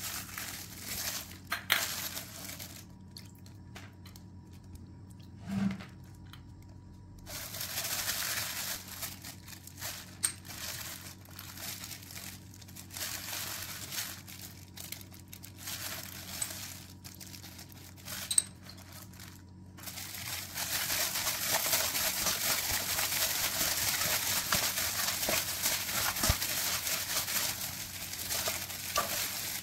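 Plastic food-prep glove crinkling on and off as a gloved hand mixes raw pork with marinade in a steel bowl. The rustle turns denser and continuous about two-thirds of the way through.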